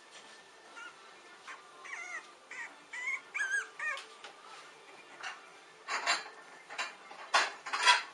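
Young French bulldog puppy whimpering in a run of short, high, wavering squeaks, followed by a few louder rustling bursts near the end.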